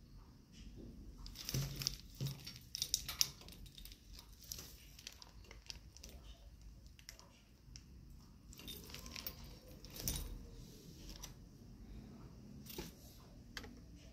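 Glass crystal teardrop pendants clinking against each other and small metal rings jingling as they are hooked onto a chandelier frame, in irregular clusters of light clinks, busiest a couple of seconds in and again near ten seconds.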